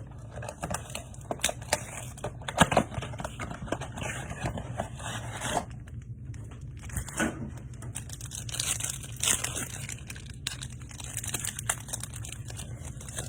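Foil wrapper of a Topps Chrome baseball card pack being torn open and crinkled by hand, with irregular sharp crackles and rustling.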